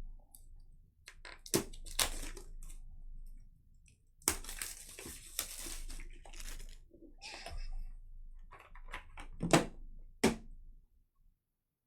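Plastic packaging and trading cards being handled: a stretch of crinkling and rustling, with scattered clicks and two sharp snaps near the end.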